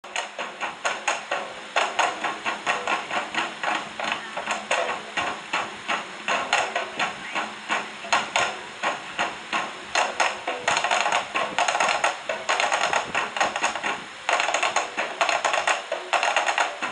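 Rapid, steady rhythmic hand percussion: sharp slaps struck several times a second in an even beat.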